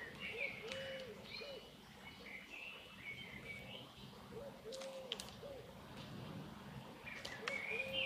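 A dove cooing a three-note phrase (short, long, short), heard three times, over small songbirds chirping. A few sharp clicks come in between.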